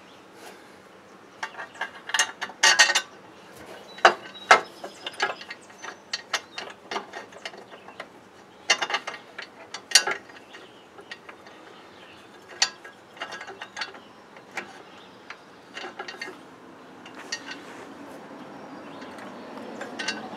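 Ratchet wrench clicking in short irregular runs, with metal clinks of the bolt and aluminum guard plate, as bolts are tightened to mount an aluminum A-arm/CV boot guard on the suspension.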